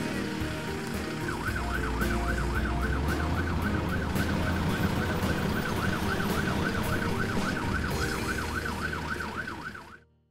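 Fire engine siren yelping, its pitch rising and falling quickly about three to four times a second, over a low engine rumble and background music. It starts about a second in and fades out near the end.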